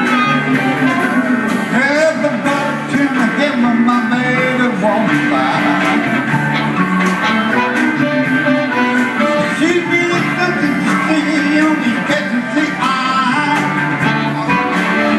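Live blues-rock band playing a song: electric guitars and keyboard with a wailing lead line, most likely a harmonica, bending between notes.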